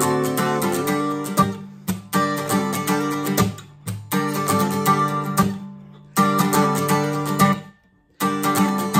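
Steel-string acoustic guitar capoed at the tenth fret, strummed quickly with a pick in a bright, trebly funk rhythm. The strumming comes in phrases of about two seconds that stop short, with a brief full stop near the end.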